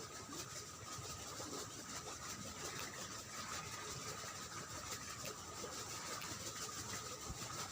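A steady engine hum, with a faint constant high whine over it.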